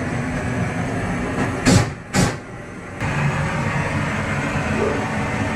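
Hand-held propane torch burning steadily, preheating a smoker's cooking chamber. About two seconds in come two short loud bursts; the sound then drops for under a second before the steady burn returns abruptly.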